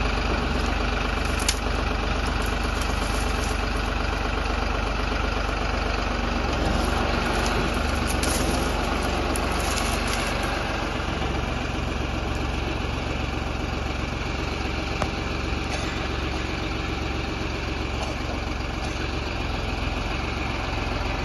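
Heavy machine engine running steadily at an even speed, with an occasional sharp click.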